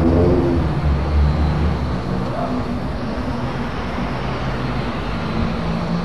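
A low engine hum fades away about two seconds in, leaving a steady rumbling background noise.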